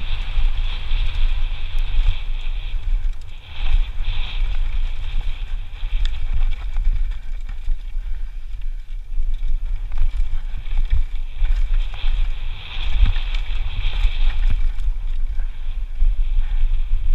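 Wind buffeting a helmet-camera microphone during a fast mountain-bike descent of a rocky dirt trail, with short rattles and knocks from the bike over the rough ground. A high buzz swells and fades several times.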